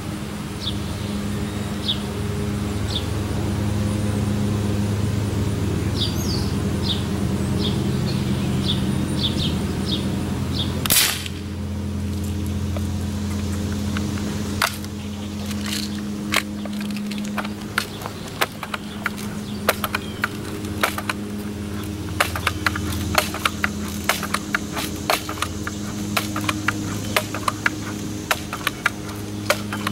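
A single sharp gunshot at a squirrel on a tree trunk, about eleven seconds in: a miss that the shooter believes struck the tree. Before it, short high bird chirps sound over a steady low hum; after it come many irregular sharp clicks.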